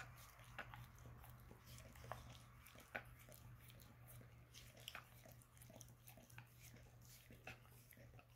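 Faint wet licking of a dog's tongue and mouth on a person's bare toes: soft, irregular clicks, a few a second.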